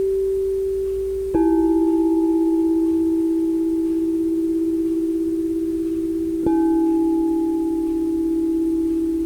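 Singing bowls struck twice, about a second in and again past the middle, each strike giving a lower, long ringing note that wavers slightly as it sustains over the fading ring of an earlier strike.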